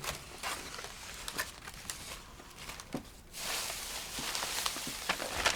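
Rustling and crinkling of an Easter basket's grass and wrapped contents being handled and dug through, with a few small clicks; the rustling gets louder about three seconds in.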